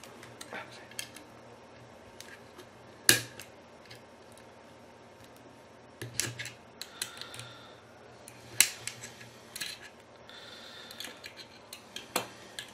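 Scattered small clicks and light knocks of an Allen key and hands working the screws on a Dahua bullet camera's mounting bracket, with two sharper knocks about three seconds in and again about nine seconds in.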